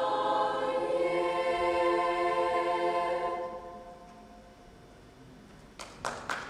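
A choir singing a long held final chord, which fades away a little over three seconds in. Near the end come a few short noisy bursts.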